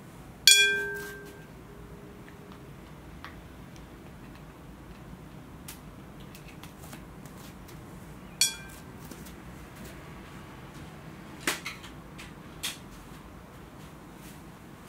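Glass bowl of water struck with a sharp clink about half a second in, ringing as ice is dropped in, then a second, fainter clink about eight seconds in. A few light knocks follow.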